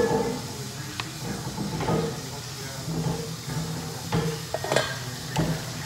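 Kitchen clatter: a handful of sharp knocks and clicks from utensils and dishes being handled, over a steady background hiss and hum.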